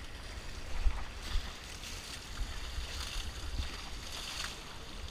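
Water splashing in a shallow river as buckets of water are thrown over an elephant, with wind rumbling on the microphone and two sharper knocks in the first second and a half.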